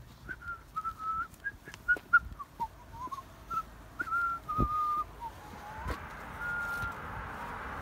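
A person whistling a short wandering tune, a string of brief notes with pitch slides, over the tap of footsteps on pavement.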